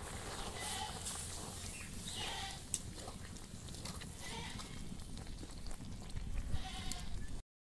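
Livestock bleating about four times in the background over a steady low rumble, with one sharp click about a third of the way in.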